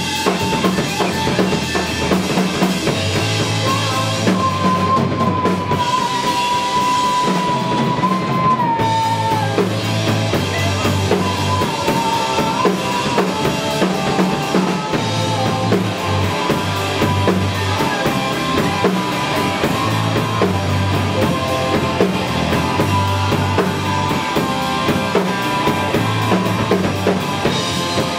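A live rock band playing through a PA: drum kit, electric bass and electric guitar, with a long held high note that bends downward about nine seconds in.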